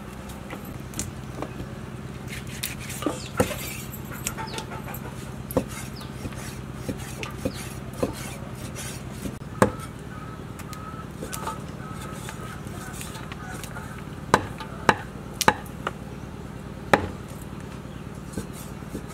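Knife cutting long beans by hand, the pieces dropping into a steel bowl: irregular sharp clicks and taps, a few louder ones around the middle and later on, over a steady low hum.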